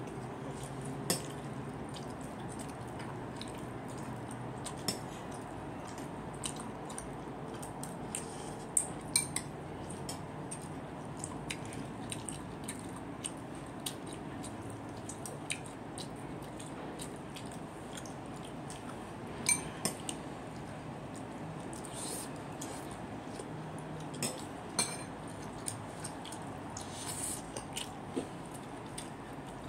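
Close-up eating sounds: wet lip smacks, chewing and sticky fingers handling messy sauced food, heard as irregular short wet clicks every second or few over a steady room background.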